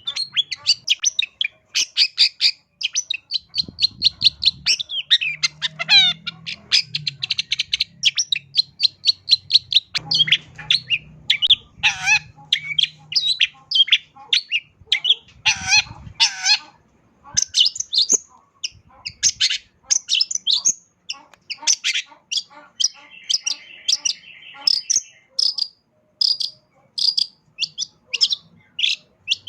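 Long-tailed shrike singing a rapid, varied song of chirps, whistles and harsh notes, a full repertoire of mimicked calls of other birds, with a short buzzing trill a little past halfway.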